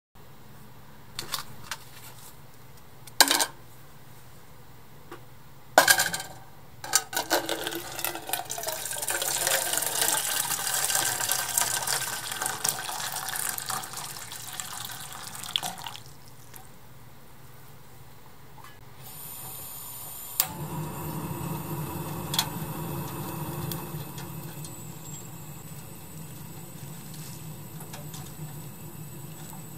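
A few sharp knocks, then water poured from a jug into a small aluminium pot for about eight seconds. About twenty seconds in a click, then a steady low rushing from the tabletop gas burner under the pot.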